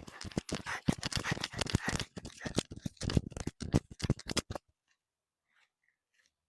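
Rapid crunching and rustling of dry vegetation, a dense run of crisp crackles that stops abruptly a little over halfway through.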